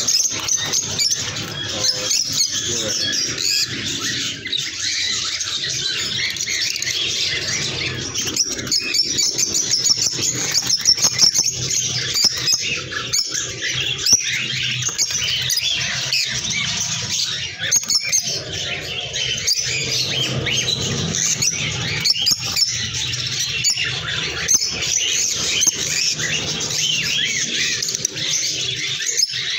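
A flock of caged lutino peach-faced lovebirds chattering: a steady, dense stream of short high chirps from many birds at once.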